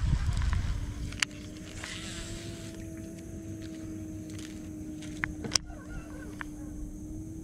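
Steady electric hum, as of a bass boat's trolling motor running at low speed, setting in about half a second in. A low rumble fills the first second, and a few sharp clicks come about a second in and again near five and a half seconds.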